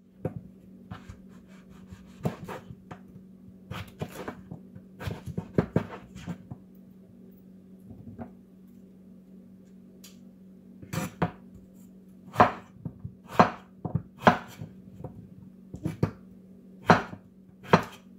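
A cleaver slicing peeled raw potatoes into long strips on a wooden cutting board. The blade knocks unevenly on the board, lighter and in small clusters at first, then in single loud chops about once a second in the second half. A steady low hum runs underneath.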